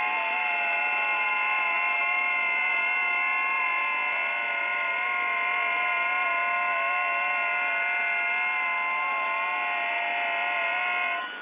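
Several FT8 digital-mode signals received on the 10-metre band: a cluster of steady tones at different pitches, each stepping between closely spaced pitches in 8-tone frequency-shift keying. They all stop together near the end as the transmit period closes, leaving receiver hiss.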